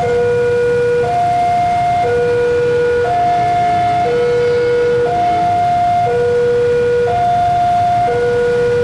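Railway level-crossing warning alarm sounding an electronic two-tone signal, switching between a lower and a higher tone about once a second: the crossing is closed for an approaching train.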